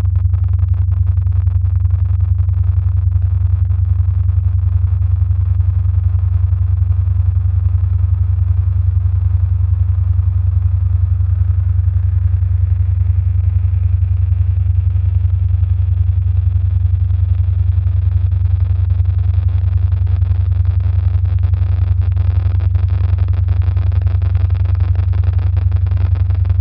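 Electronic soundtrack: a loud, steady low bass drone with a fast, even pulse and a faint hiss above it that grows a little in the last third.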